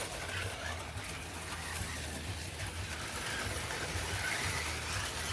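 HO-scale slot cars lapping the track, their small electric can motors running with a steady hum and buzz.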